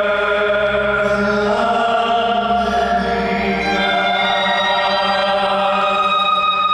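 Figure skating program music: long held, choir-like chanting voices, moving to new notes about a second and a half in and again about three seconds in.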